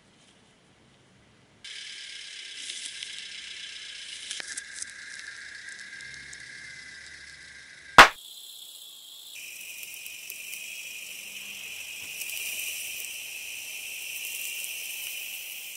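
A single sharp clapperboard clap about halfway through, the loudest sound, over a steady high-pitched hiss with buzzing tones that changes character a second after the clap.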